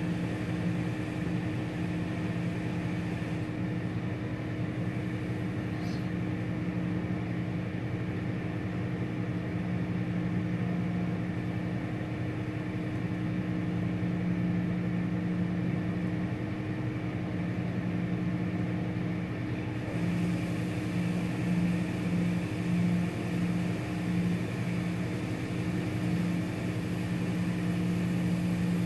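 Automatic touch car wash running: a steady hum of its pumps and motors, with water spray hissing. Near the end the hum pulses for a few seconds.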